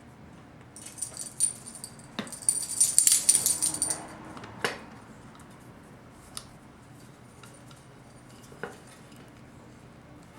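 Small metal transmission-pump parts clinking and rattling as they are handled, loudest about two to four seconds in, followed by a few separate light clicks.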